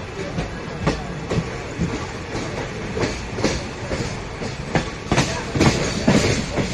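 Wheels of a moving passenger train coach clattering over the rail joints, heard from the open coach doorway. The clicks come irregularly over a steady rumble and grow quicker and louder in the last couple of seconds.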